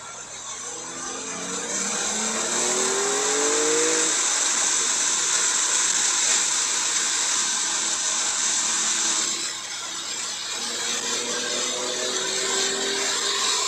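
Porsche 992 Carrera 4S's twin-turbo flat-six accelerating, its note rising in pitch in the first few seconds and again near the end. Over it is a loud, steady hiss of the tyres running through standing water on a wet track, which drops off fairly suddenly about two-thirds of the way through.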